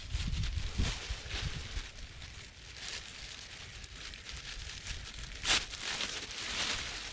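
Dry leaves and twigs rustling and crackling, with gusts of wind buffeting the microphone at the start and near the end, and one sharp crack about five and a half seconds in.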